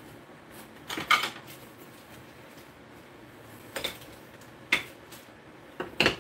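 Kitchen clatter of dishes and utensils being handled and set down: a few short, sharp clinks and knocks, about a second in, twice around four to five seconds, and again near the end.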